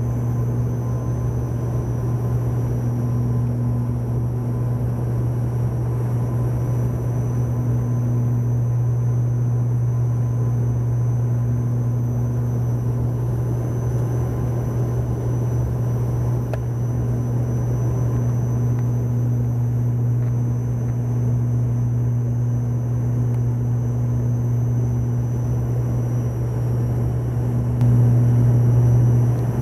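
Steady engine drone inside a passenger aircraft's cabin, a strong low hum with faint steady whining tones above it. It swells briefly near the end.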